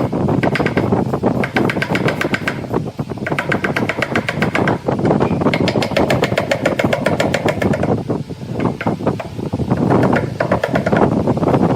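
A power tool working wood in stretches of a second or two with short pauses, making a fast, even rattle with a ringing tone over it.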